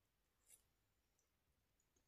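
Near silence: room tone, with one faint short click about half a second in.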